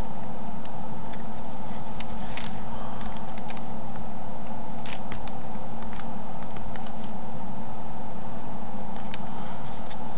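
A steady low hum with scattered light clicks and crackles, the strongest about two and a half and five seconds in.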